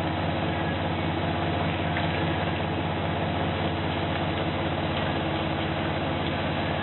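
A steady low machine hum with a hiss over it as zucchini slices fry in oil in a pan on a gas burner. A couple of light clicks come from metal tongs touching the pan.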